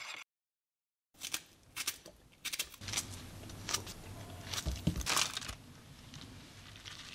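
Food-prep handling sounds: a spoon and knife clink and scrape against a glass bowl while a banana is sliced over strawberries and seeds are spooned on top. The sound comes as a series of short clicks and knocks, after a second of dead silence near the start.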